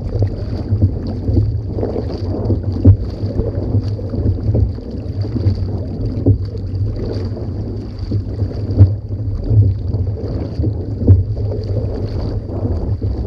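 A paddled kayak moving through choppy water: water splashing along the hull and paddle blades dipping with uneven strokes, under heavy wind rumble on the microphone.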